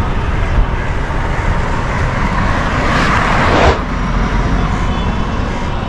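Street traffic: a steady rumble of engines and tyres, with one vehicle's noise swelling as it passes and peaking about three and a half seconds in.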